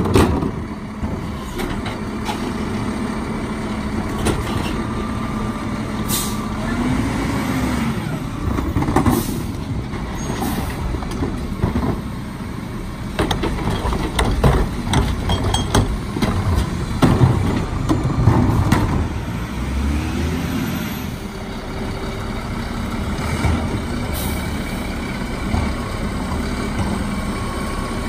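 Mack MRU garbage truck with a Heil Formula 5000 rear-load body at work: the engine runs and revs up and down several times as the cart tippers and packer cycle. Plastic trash carts knock against the tipper, with air brake hisses as the truck stops and moves on.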